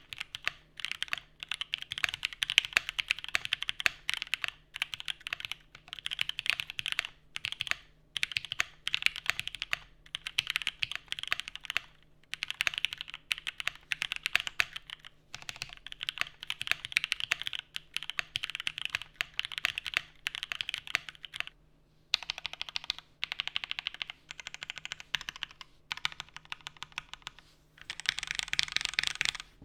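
Typing sound test on a custom 7v mechanical keyboard with a polycarbonate plate, lubed and filmed Alpaca V2 linear switches and GMK keycaps: rapid keystroke clacks in bursts with brief pauses between them.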